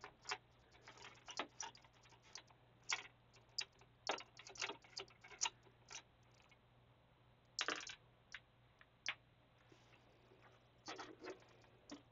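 Faint, irregular light clicks and taps from hands handling the plastic parts of an inkjet printer's printhead carriage, some coming in small quick clusters.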